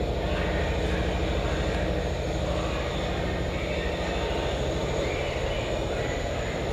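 A steady low rumble with a constant hum underneath, unchanging throughout.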